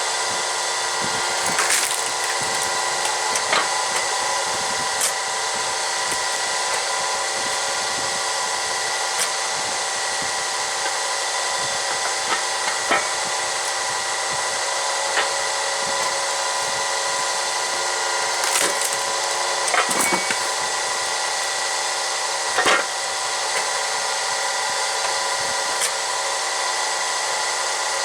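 A low-powered hydraulic log splitter runs with a steady drone while a pine log is forced apart, splitting with several sharp cracks and splintering; the loudest crack comes near the end.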